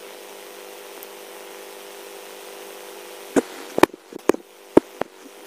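Steady background hum, then four or five sharp clicks of a computer mouse a little past halfway through.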